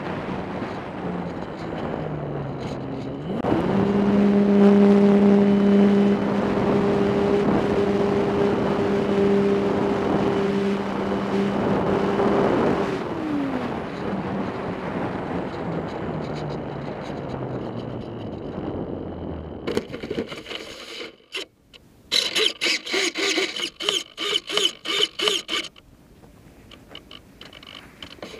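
RC airplane's motor and propeller heard from a camera mounted on the plane, with wind on the microphone. About three seconds in the throttle comes up sharply to a steady drone, which drops away about ten seconds later. Near the end come choppy fluttering pulses, about four or five a second.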